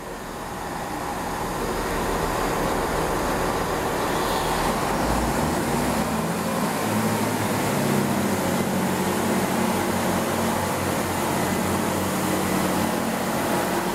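Great Western Railway Class 166 diesel multiple unit departing and passing close by: the hum of its underfloor diesel engines with wheel and rail noise. It grows louder over the first two seconds and then runs steadily, with a steady low engine tone from about six seconds in.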